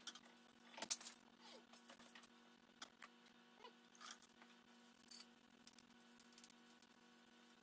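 Faint clinks and rustles of metal hand tools being handled and wiped dry with cloths, with one sharper clack about a second in, over a low steady hum.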